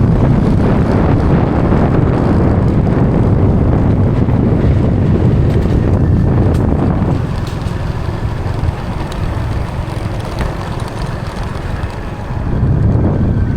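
Wind buffeting the microphone on a moving motorcycle, mixed with the motorcycle's engine running. The rush eases a little about seven seconds in and picks up again near the end.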